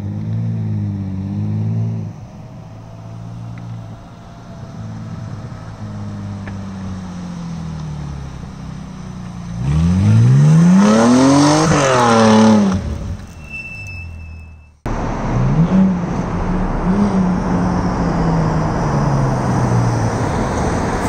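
Straight-piped Mercedes-Benz C240 (W202) V6 exhaust: revving at a distance, then accelerating hard toward and past, its note climbing steeply and then dropping as it goes by about ten to thirteen seconds in. After a sudden cut, the V6 runs close by with small rises and falls in revs.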